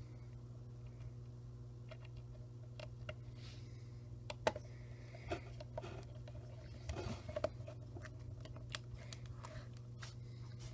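Faint scattered clicks and light taps from a small #000 Phillips screwdriver driving the last screw into the camcorder's plastic case and the case being handled, over a steady low hum.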